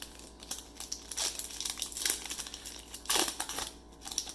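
Foil trading-card pack wrapper crinkling and crackling as it is torn open and handled. The loudest rustle comes about three seconds in.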